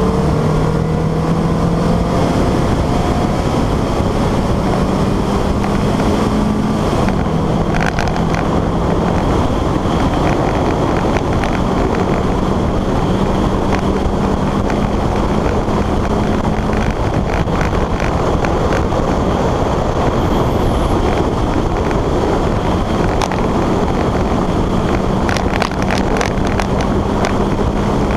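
A 1987 Porsche 944's 2.5-litre naturally aspirated four-cylinder engine runs hard at racing speed, heard onboard. Its note steps up and down with gear changes, under steady wind and road noise on the microphone, with a few sharp clicks near the end.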